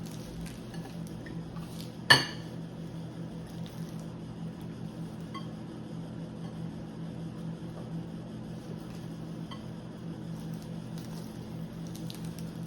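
Food storage containers being handled while packing a fridge: one sharp clack about two seconds in, then a few faint clicks. A steady low hum runs underneath.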